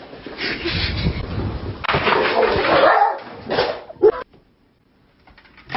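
A dog making noise for about four seconds, ending in one sharp, loud knock, then a moment of near silence.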